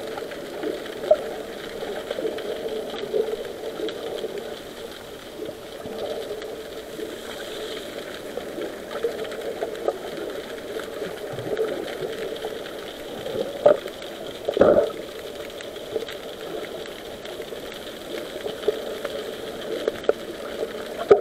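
Muffled underwater sound picked up through an action camera's waterproof housing: a steady hum with occasional knocks, the two loudest a second apart about two-thirds of the way through.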